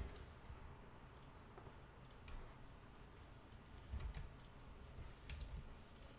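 Faint, scattered clicks of a computer mouse and keyboard keys, a dozen or so irregular taps with gaps between them.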